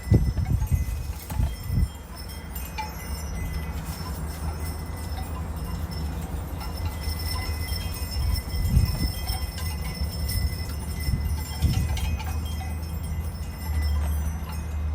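Wind chimes ringing softly and steadily in a breeze, under a low rumble of wind on the microphone that surges in gusts at the start, near the middle and about three quarters through.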